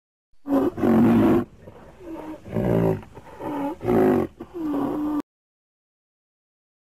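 Rhinoceros calling: a series of about five loud, pitched bellowing calls that rise and fall in pitch, cut off abruptly about five seconds in.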